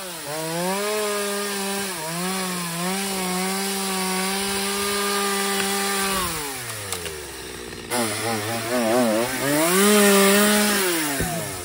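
Two-stroke chainsaw cutting through sapling stems at full throttle. It drops to idle about six seconds in, then revs up again, its pitch wavering under load, and eases back to idle near the end.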